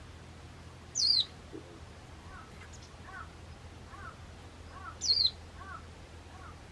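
Japanese white-eye calling in a garden: two loud, short, high notes that fall in pitch, about four seconds apart. Fainter, lower chirps repeat about every 0.7 s in between, over a steady low hum.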